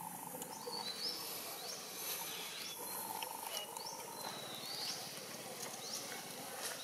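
Forest ambience: short, high, rising chirps repeat every second or so over a steady hiss, with a buzzing hum that comes in briefly about three seconds in.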